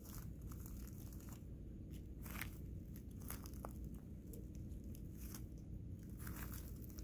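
Footsteps crunching through dry leaf litter on the forest floor, irregular steps about a second apart, over a steady low rumble.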